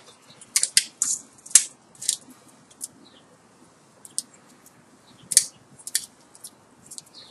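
Hands working a bundle of copper magnet wire into the slots of an electric motor stator during rewinding: irregular crisp clicks and scrapes of wire against the stator, in two clusters with a quieter stretch between.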